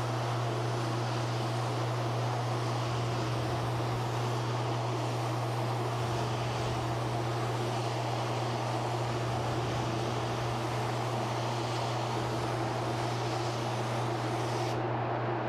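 Spray gun hissing as it sprays shellac-based primer, over the steady low hum of the sprayer's air supply. The hiss cuts off suddenly near the end while the hum carries on, as the trigger is released.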